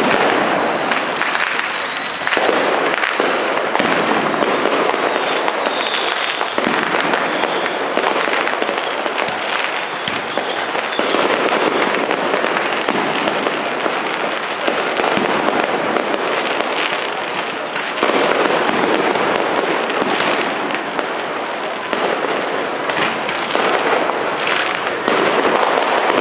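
Fireworks going off in a dense, continuous crackle of many small bursts and pops, with a faint high whistle in the first few seconds.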